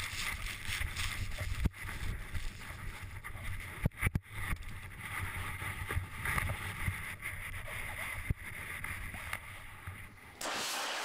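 Rushing snow and wind buffeting a snowboarder's helmet camera as he is tumbled in an avalanche: a low rumble with scattered knocks and thumps on the camera. Near the end it cuts suddenly to a steady hiss.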